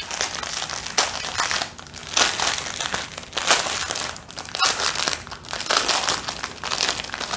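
A clear plastic bag holding small packets of diamond-painting drills, crinkling and rustling in an uneven run as it is handled.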